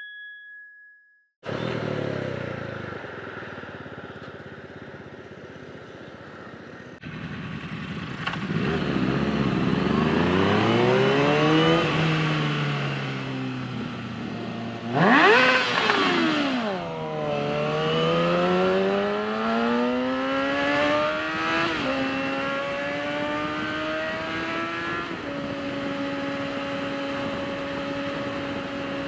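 Sport motorcycle engine heard from the rider's seat, first running low and steady. It then accelerates through the gears, the pitch climbing and dropping back at each shift with one sharp rev about halfway, and settles into a steady cruise near the end. It opens with about a second and a half of silence.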